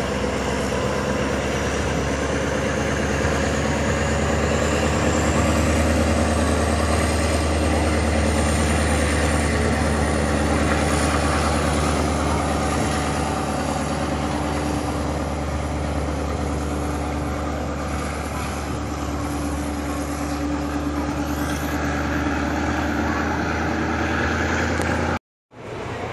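Diesel passenger train pulling out of the station, its engine running with a deep steady hum and a pitch that rises slowly as it gathers speed. The sound cuts out briefly near the end.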